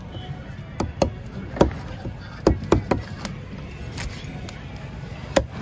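Heavy curved fish-cutting knife chopping through a barracuda onto a round wooden chopping block: about nine sharp strikes at uneven intervals, over a low steady background rumble.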